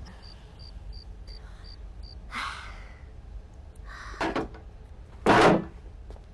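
Crickets chirping in a steady rhythm of about three chirps a second, then a couple of soft thuds and one louder door bang about five seconds in.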